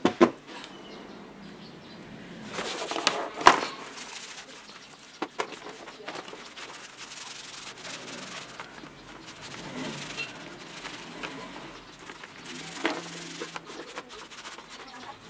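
Hand scrubbing and rubbing while cleaning jigsaw parts: a brush on the motor's field coil, then the power cord rubbed in soapy water. A sharp knock comes right at the start and a louder one about three and a half seconds in.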